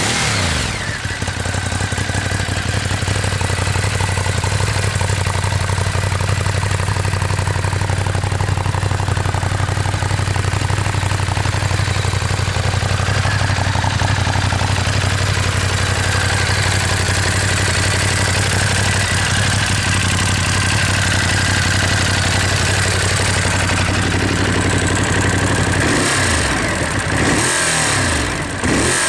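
A Ducati Monster 821's L-twin engine idles steadily through its stock exhaust, its revs settling back from a blip right at the start. Near the end the throttle is blipped a few times, the revs quickly rising and falling.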